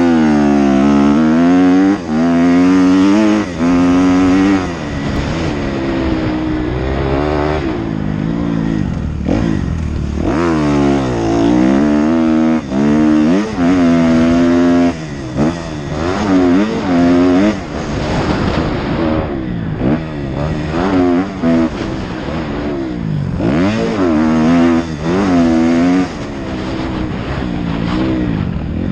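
Kawasaki motocross bike engine revving hard through a lap, its pitch climbing and dropping over and over as the rider works the throttle and gears, with brief cut-offs where the throttle is chopped. Heard from the rider's helmet.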